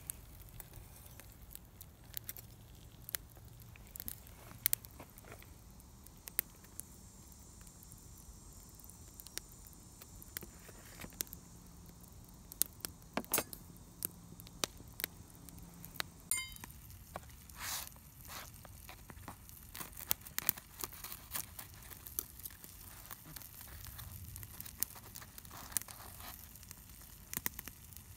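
Scattered light clicks and clinks of metal utensils: tongs lifting a grilled calzone onto a camp plate, then a knife and fork cutting into it on the plate.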